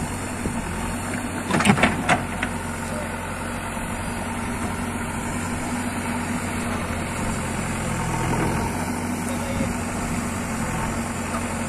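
JCB 3DX backhoe loader's diesel engine running steadily as the backhoe digs, with three sharp knocks about one and a half to two seconds in and a slight rise in engine sound around eight seconds in.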